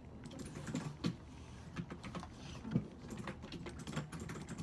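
Scattered light clicks and taps, a few a second and unevenly spaced, with a couple of louder knocks, over a steady low hum.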